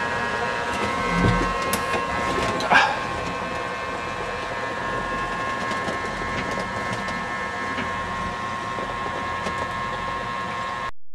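Steady electric whir with a steady high whine from the running Horizon H2000 hydrogen fuel cell's cooling fans and the boat's electric drive. There is a short knock about three seconds in, and the sound cuts off abruptly near the end.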